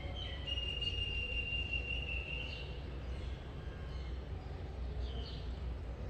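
A faint, high-pitched animal call: one long, even whistle lasting about two seconds, then a couple of short chirps, over a steady low hum.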